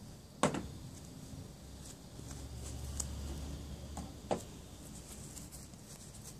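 Two sharp knocks about four seconds apart, with faint ticking and a low rumble between them.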